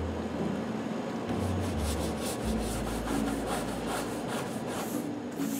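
Scrub brush rubbing back and forth over the hull of an upturned canoe, washing it before it is painted. Quick, even strokes, about four a second, set in about a second in.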